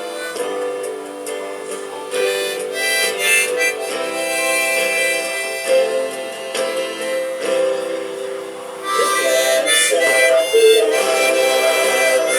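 Accordion playing a tune: held reed chords with a melody over them, growing louder about nine seconds in.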